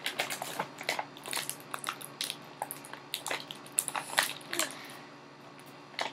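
Small plastic toy pieces and their packaging being handled: irregular crinkles and clicks that die down near the end.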